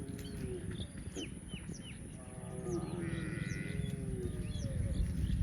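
Cow mooing twice: a short moo at the start and a longer, higher moo from about two seconds in, with small birds chirping behind.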